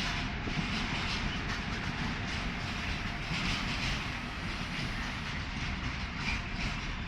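Intermodal freight train rolling past: a steady rumble and hiss of steel wheels on the rails, with repeated clicks as the wagons' wheels cross rail joints.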